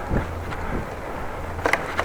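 Strong wind buffeting the microphone of a camera on a moving bicycle, a steady low rumble, with a couple of sharp clicks near the end.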